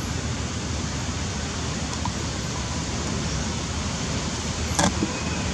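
Steady hissing background noise with one brief click near the end.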